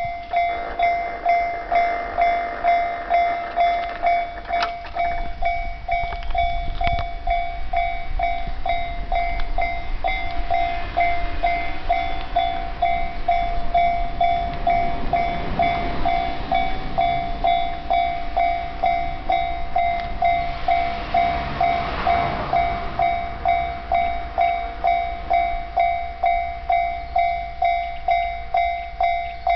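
Japanese level-crossing warning bell dinging steadily, about one and a half strikes a second. Roughly midway a passing train's rumble rises over it and fades again.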